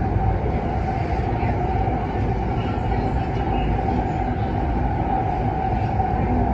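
Kinki Sharyo–Kawasaki SP1900 electric train running at speed, heard from inside the carriage: a steady rumble of wheels on rail with a steady mid-pitched tone above it.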